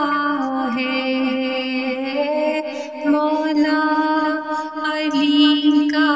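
A solo voice chanting a manqabat, a devotional Islamic poem, in long held notes, with a short break about three seconds in.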